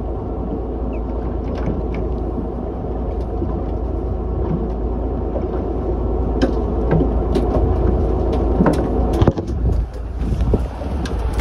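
Fishing boat's engine running steadily underway, a constant low hum, with a few sharp clicks in the second half.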